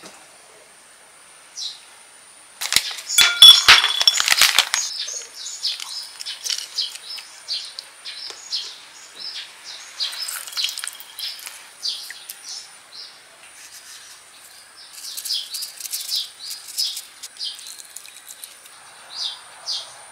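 Small birds chirping in short, repeated calls, with a loud burst of clicking and clattering about three seconds in.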